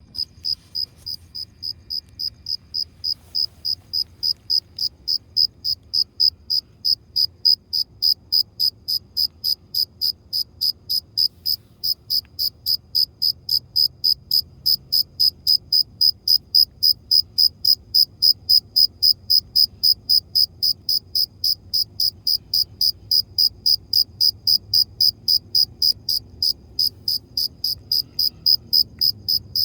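Cricket chirping close up: a steady, even rhythm of short high-pitched chirps, about three a second, made by the male rubbing its forewings together.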